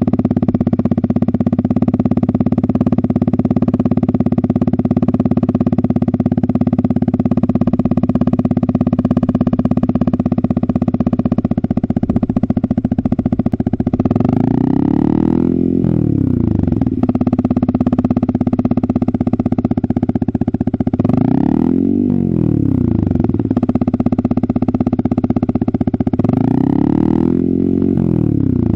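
Yamaha XSR 155's single-cylinder engine through an SC Project aftermarket exhaust with its silencer insert fitted, idling steadily. About halfway through it is revved, and twice more near the end; each rev rises and falls in pitch over about two seconds.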